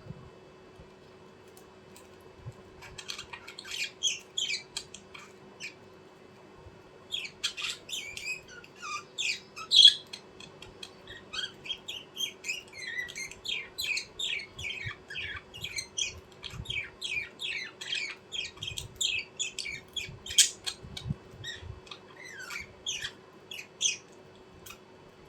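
Small birds chirping and squawking in quick runs of short, high calls. The calls start about three seconds in, pause briefly, then go on almost without a break until near the end.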